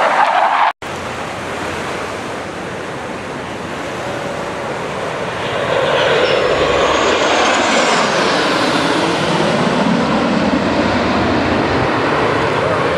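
Formation of jet aircraft passing overhead, with engine noise that swells about halfway through and falls in pitch as the jets go by, over steady breaking surf.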